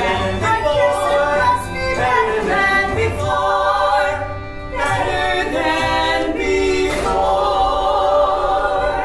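Musical-theatre cast of a man and two women singing together in harmony, ending on long held notes.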